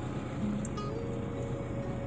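Background music with long held notes over a steady rushing noise.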